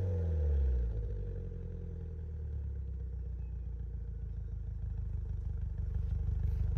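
2005 Subaru Impreza Spec C Type RA's turbocharged flat-four, heard at its Kakimoto exhaust with Tomei manifold and SARD catalyst: revs falling back from a blip in the first second, then idling steadily, getting slightly louder near the end.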